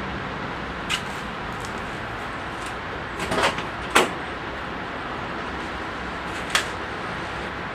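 1979 Chevrolet Caprice coupe's driver door being opened: a few light clicks, then a sharp latch click about four seconds in as the handle is pulled, and another click a couple of seconds later as the door swings open, over a steady background hiss.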